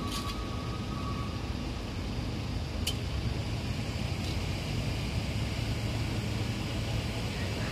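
Low, steady drone of a large ferry's engines as it manoeuvres in to berth, heard over open-air background noise.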